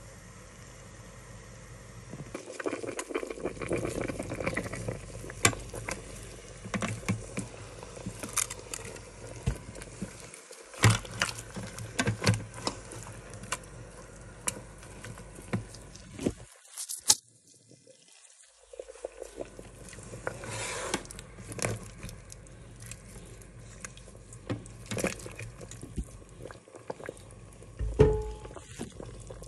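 A slotted plastic spatula stirs and turns cooked goat meat in its broth in a nonstick multicooker pot: irregular clacks and knocks against the pot, with wet, liquid sounds. A brief pause comes a little past halfway.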